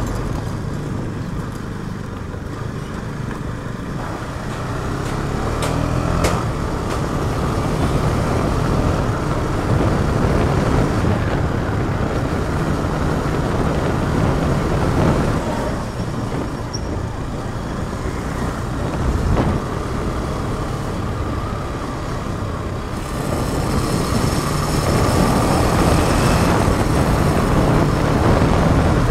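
KTM Duke 250's single-cylinder engine running under way, its note rising and falling as the rider accelerates and eases off, with wind rushing over a chest-mounted camera's microphone. The wind noise grows louder in the last few seconds.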